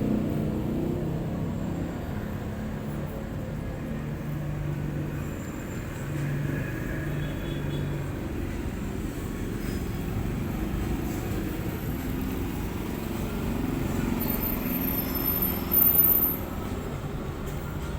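Steady low rumble of road traffic with vehicle engines running, and a brief louder sound near the end.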